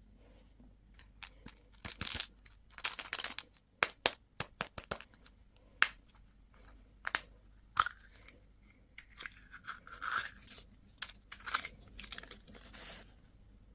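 Plastic candy and toy packaging being opened by hand: wrappers tearing and crinkling in short bursts, with scattered sharp clicks.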